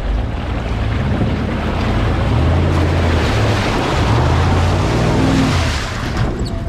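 Off-road vehicle engine revving under load, its pitch climbing and dropping several times and rising highest shortly before the end, over a loud rushing hiss that swells through the middle.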